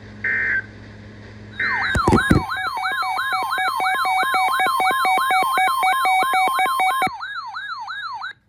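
The last two of three short EAS end-of-message data bursts, followed by a loud electronic siren sound that warbles rapidly, about three sweeps a second, with a thump as it starts. It drops off sharply about seven seconds in, and a fainter warble stops just before the end.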